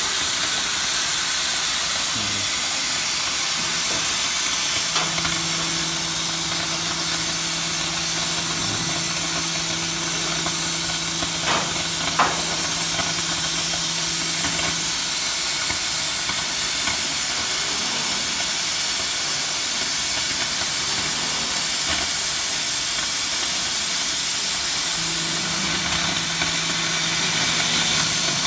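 Oxy-fuel flame-cutting torch hissing steadily as it cuts 18 mm carbon steel. A low, even hum joins in twice, for about ten seconds in the middle and again near the end, with two faint clicks in between.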